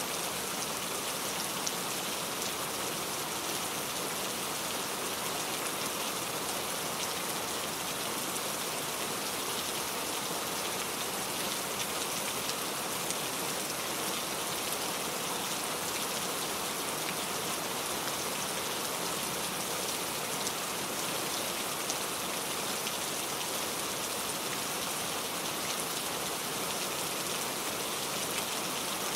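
Heavy rain falling steadily, a dense even hiss of drops striking surfaces with faint individual drop ticks through it.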